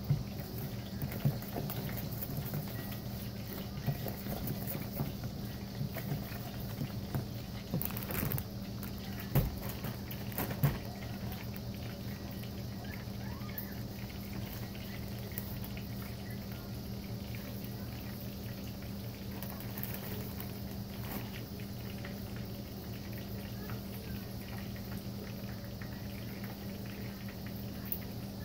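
Fork stirring hush puppy batter in a plastic bowl, with scattered clicks and taps of the fork against the bowl for the first ten seconds or so, then stopping. A steady low hum runs underneath.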